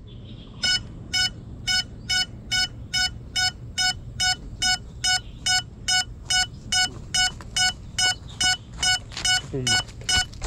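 Crashed FPV quadcopter's lost-model alarm beeping: a steady run of short, high electronic beeps, about two and a half a second, starting about half a second in.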